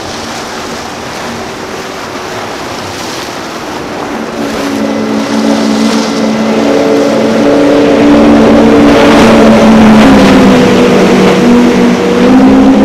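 Speedboat outboard engines running flat out, a steady high-revving note that grows louder over several seconds, with spray and hull noise beneath. The pitch dips slightly near the end.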